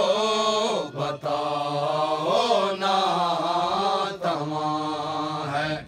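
Male voices chanting a noha, a Shia lament in Urdu, in long, drawn-out melodic lines with two brief breaks for breath.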